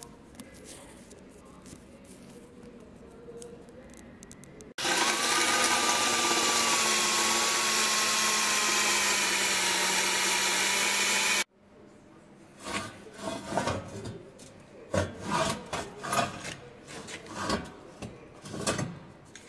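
A cordless drill runs steadily for about seven seconds from roughly five seconds in, boring through a galvanized steel crossmember, its whine sagging slightly in pitch under load. It then stops abruptly, and a string of short, irregular crackling bursts of electric arc welding follows, tack welds on the galvanized steel.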